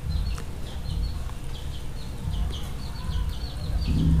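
Short, high chirps repeated several times a second, each falling in pitch, over a low rumble that grows louder near the end.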